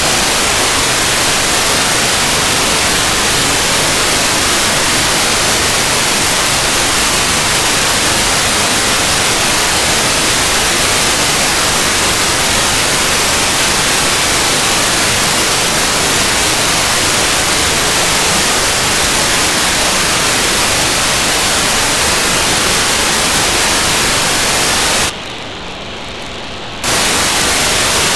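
Steady hiss of a software-defined radio's FM receiver tuned to the ArcCube-01 cubesat downlink near 437.6 MHz. About 25 seconds in, a telemetry packet of just under two seconds arrives: the hiss drops away and a quieter, duller rasp of GMSK data takes its place, then the hiss returns.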